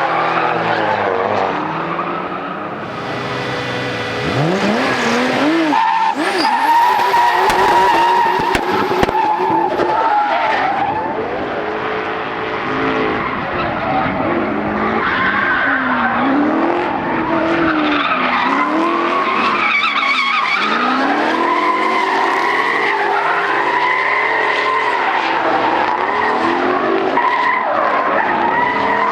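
Drift car engines revving hard, their pitch rising and falling again and again with the throttle, over steady tyre squeal as the cars slide.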